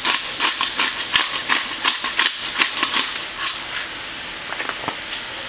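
Hand pepper grinder cracking peppercorns in a fast run of sharp clicks over sautéing vegetables sizzling in olive oil in a frying pan. The grinding stops a little past three seconds in, leaving the steady sizzle.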